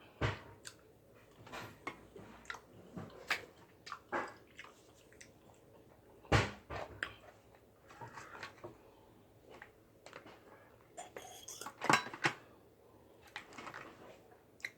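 Eating from a plate of boiled seafood, with chewing and irregular clicks and knocks of shells and utensils against the dish. The two loudest knocks come about six and twelve seconds in.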